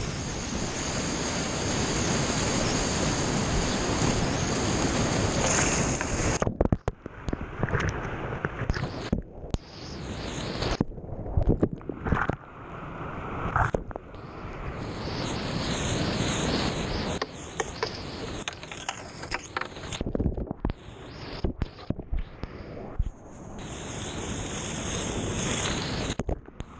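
Whitewater rapids rushing and splashing around a kayak, heard from a camera at water level. The rush is steady for the first six seconds, then cuts out and comes back again and again, with sharp splashes, as water washes over the camera.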